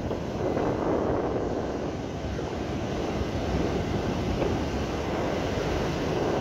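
Small waves breaking and washing up a sandy beach in a steady rush, with wind buffeting the microphone in a low, gusty rumble.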